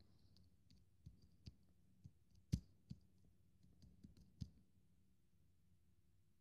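Faint, irregular clicks of typing on a tablet's touchscreen keyboard, about nine taps, the loudest about two and a half seconds in. The taps stop after about four and a half seconds.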